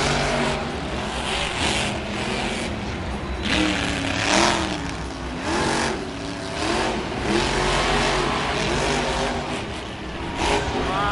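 Monster truck engines (supercharged big-block V8s) revving hard as the trucks race around the dirt track. The pitch rises and falls again and again as the drivers go on and off the throttle, with one sharp rev near the end.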